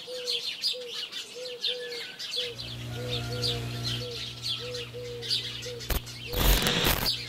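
Birds chirping, with a lower short call repeating about twice a second. About two and a half seconds in, a low steady synth drone comes in under the birds, and a brief noisy whoosh sweeps through near the end.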